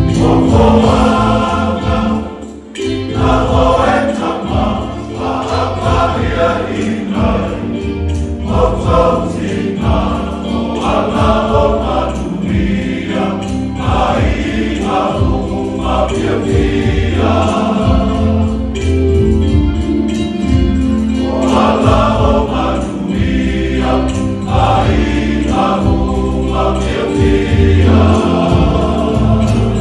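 Choir of church ministers singing a gospel-style song over instrumental accompaniment with sustained bass notes. There is a brief dip about two and a half seconds in.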